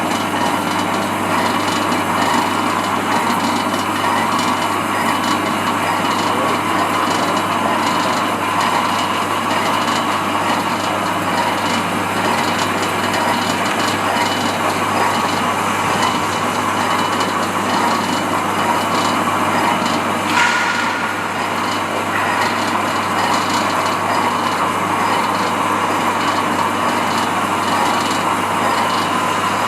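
Rice thickness grader of a paddy quality test machine running, with rice grains rattling steadily in its rotating sieve drum as they are graded by thickness through a 1.70 mm sieve.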